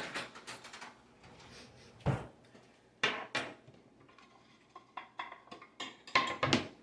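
Knives and kitchenware handled on a counter: a string of separate clinks, knocks and clatters, with the loudest cluster near the end.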